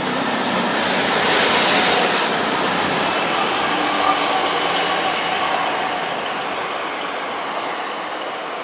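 Class 185 diesel multiple unit passing and drawing away, its engines and wheels on the rails loudest about a second and a half in, then fading steadily.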